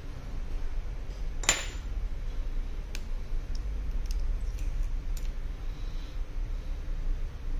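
A sharp metallic click about a second and a half in, then a few fainter clicks and taps of small tools and metal parts as a connector cover bracket is taken off an opened iPhone 11 Pro. A steady low hum runs underneath.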